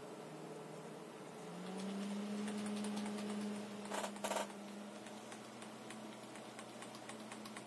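Desktop PC fans spinning up as the computer powers back on to post after its BIOS update: a steady hum that rises in pitch and grows louder about one and a half seconds in, then eases back. A few sharp clicks come near the middle.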